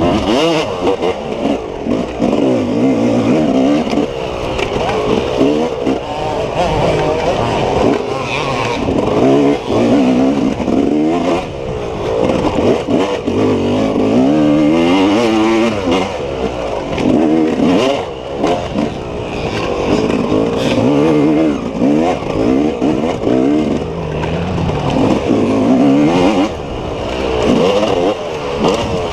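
Off-road racing motorcycle engine under hard riding, its revs rising and falling again and again as the throttle opens and closes, with occasional knocks.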